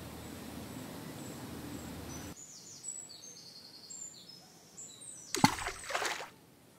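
Low outdoor rumble at first, then from about two seconds in birds chirping in short high notes. Near the end comes a sudden splash into water lasting under a second, a frog-into-pond splash matching the haiku, and it cuts off sharply.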